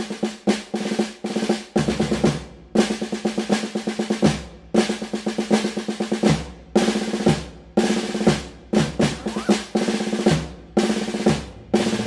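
Background music of a snare drum playing short rolls and quick strokes, repeated about once a second.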